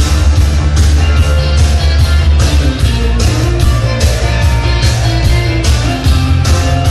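Loud rock-style music with guitar and heavy bass over a steady drum beat, its cymbal hits repeating evenly.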